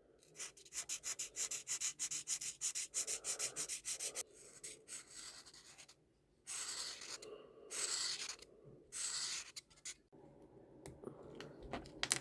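Colouring on paper: fast back-and-forth scratchy shading strokes, about six or seven a second, for the first few seconds. After a short pause come three longer, slower strokes and then lighter scratching.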